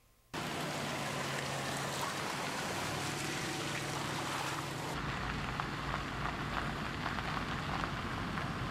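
Range Rover Supercharged's V8 running low under a steady rush of tyres driving through wet mud; about five seconds in the sound changes to a deeper rumble with tyres crackling over gravel.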